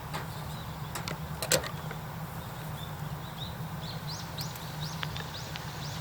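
Outdoor ambience with a steady low rumble and a few knocks, the loudest about one and a half seconds in. A bird calls in the second half with a quick series of short rising chirps.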